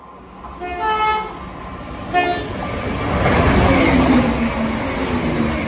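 Diesel multiple unit sounds its horn twice, a longer blast then a short one, then runs through at speed. A rising rush of wheels and engine follows, with the engine note dropping in pitch as it passes.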